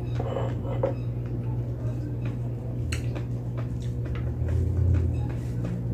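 Close-miked eating sounds: chewing and mouth noises with small scattered clicks as fingers tear and handle food. There is a sharper click about three seconds in, all over a steady low hum.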